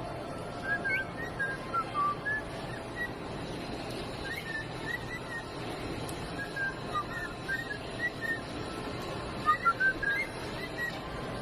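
Cockatiel whistling: short chirpy notes that bend up and down, coming in four or five separate runs with short pauses between.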